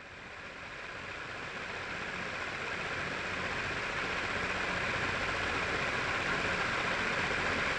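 Small high-speed DC motor spinning a cardboard fan: a steady whirring hiss that grows louder over the first few seconds, then holds.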